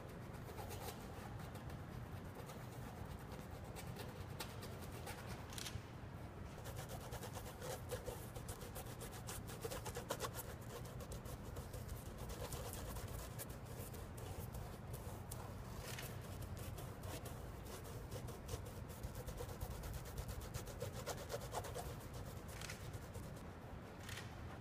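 Faint rubbing and scraping of hands and a straightedge worked over a burlap canvas panel, with a few light clicks, over a low steady room hum.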